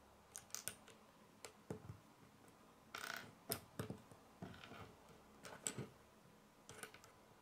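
Small plastic Lego pieces clicking as they are pressed together and handled on a wooden tabletop: a string of irregular, sharp little clicks.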